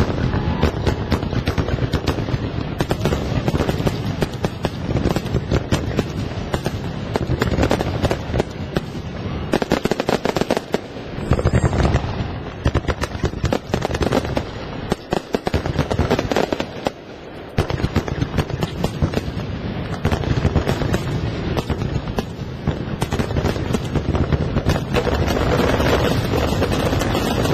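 Fireworks going off in a rapid, continuous barrage of bangs and crackling, with a brief lull about two-thirds of the way through.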